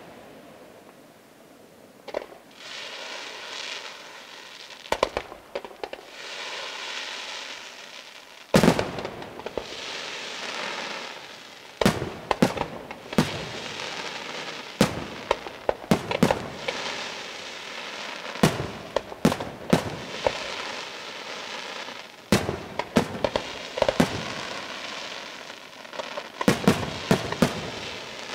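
Aerial fireworks display: shells bursting with about twenty sharp bangs, few in the first seconds and coming in quicker clusters from about twelve seconds in. Between the bangs run stretches of dense crackling and sizzling from the burning stars.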